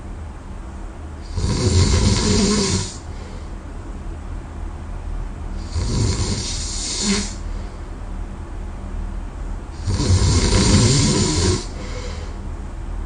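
A person snoring heavily in their sleep: three loud snores, each about a second and a half long, coming roughly every four seconds, with quieter breathing between them.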